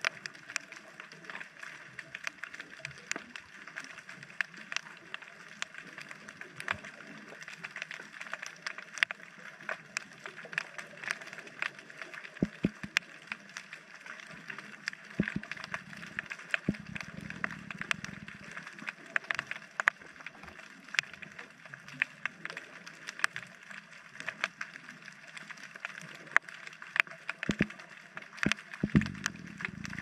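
Underwater sound picked up by a GoPro in a dive housing: a steady crackle of sharp clicks over a faint hiss. Two low rumbles come through, one a little past the middle and a shorter one near the end.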